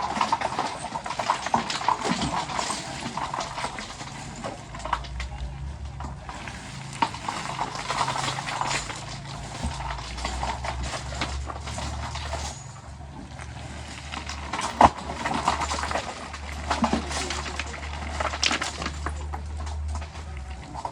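Heavy diesel machinery running at a low, steady drone that comes in about four seconds in, with scattered clanks and knocks over it.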